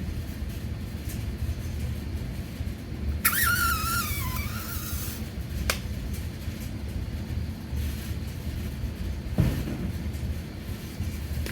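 A plastic craft-paint squeeze bottle squealing and sputtering for about two seconds, falling in pitch, as thick paint and air are forced through its clogged nozzle. A sharp click follows, then a knock near the end, over a steady low rumble.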